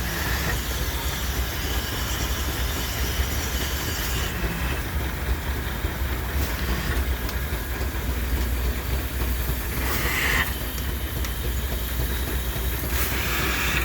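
Antique steam engine running with a steady low rumble and hiss, with two short, louder hisses of steam, about ten seconds in and near the end.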